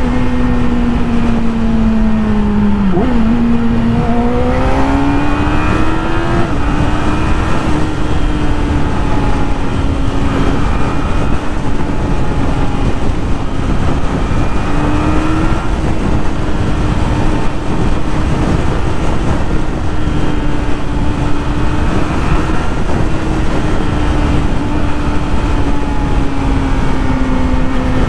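Yamaha YZF-R6 sport bike's 600cc inline-four engine running under a loud, steady rush of riding wind. The engine note dips about three seconds in, climbs again, then holds fairly steady.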